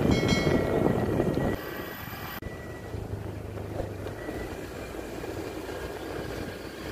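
Motorcycle engine running with wind noise while riding, heard from the bike itself. Louder for the first second and a half, then a sudden change about two seconds in to a quieter, steady hum.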